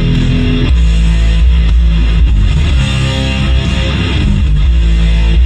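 Recorded music played loud through an NHL Pro Sound PA system, with 15-inch Subsonic subwoofers and mid-high cabinets, filling the room with heavy sub-bass.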